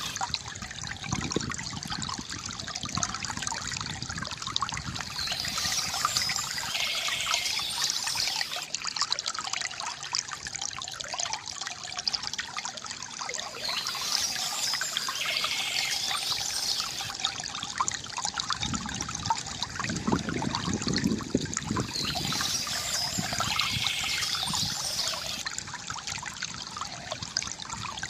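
Water trickling and gurgling steadily from a bamboo fountain, with a bird chirping in short spells about every nine seconds.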